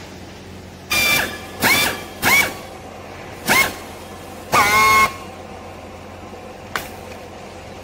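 Handheld powered strapping tool tensioning a green plastic strap around a compressed cloth bale: five short bursts of a whine that rises quickly in pitch and then holds, with a sharp click near the end.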